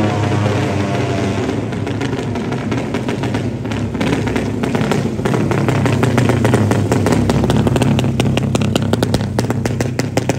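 Drag-race motorcycle engine with an open exhaust running close by. From about four seconds in it turns to rapid, irregular cracking and popping that comes faster toward the end.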